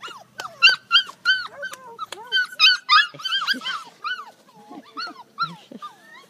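Border collie puppies yipping and whining, a rapid run of short high-pitched calls from several pups at once that thins out after about four seconds.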